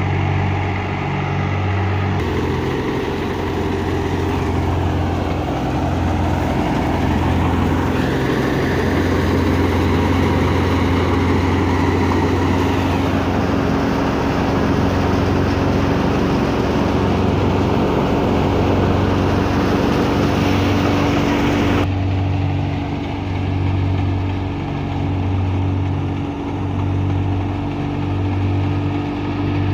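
Fiat 480 tractor's three-cylinder diesel engine running steadily under load while it drives a wheat thresher, the thresher's drum adding a steady hum. There is a low, even throb, and the mix shifts abruptly about two seconds in and again about two-thirds of the way through.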